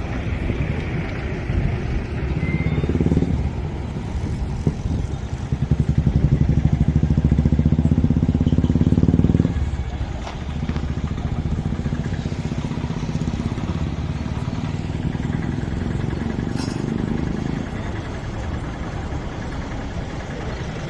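Large diesel lorry engine running as the truck manoeuvres. It swells and runs loudest for a few seconds near the middle, then drops back to a steadier, quieter run.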